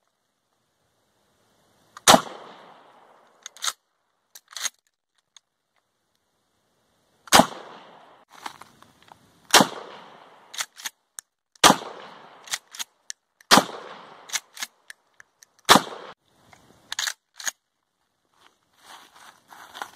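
Mossberg 12-gauge pump-action shotgun firing 1.75-inch mini shells: six shots, the first about two seconds in and the rest roughly two seconds apart, each with a short decaying echo. Lighter clacks between the shots are the pump being cycled.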